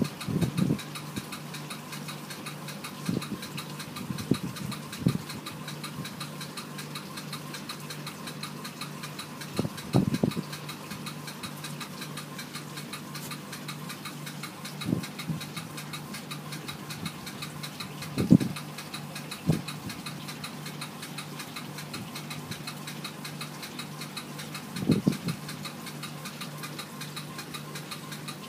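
Steady electric hum and buzz of an aquarium pump running, broken by a few short, soft low thumps.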